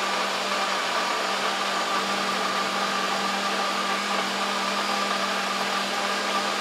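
Nutribullet blender combo running steadily in its pitcher, blending a smoothie with ice and almonds. It is a loud, constant motor whine with a rushing churn and no change in pitch.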